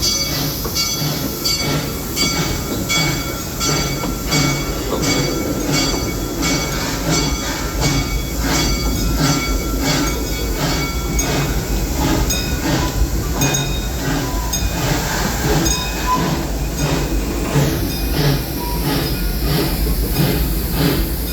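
Amusement park passenger train running along its track, heard from aboard a car: a steady rumble with the wheels clicking over the rail joints about twice a second.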